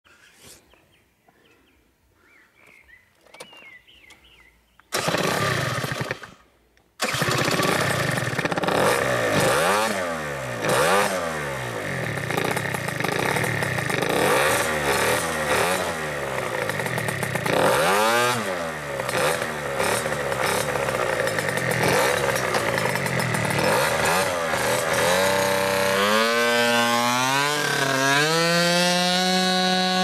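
Gilera Runner scooter's tuned two-stroke engine with an expansion-chamber exhaust. It starts about five seconds in, cuts out briefly, starts again and is revved over and over with sharp throttle blips. Near the end it gives a steady, high note that climbs in steps as the scooter pulls away.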